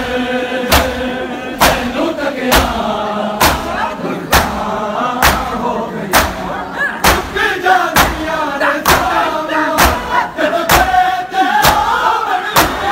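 Shia mourners performing matam: many open hands slap bare chests in unison, sharp and loud, at an even beat a little more than once a second, while the crowd chants a noha lament in chorus.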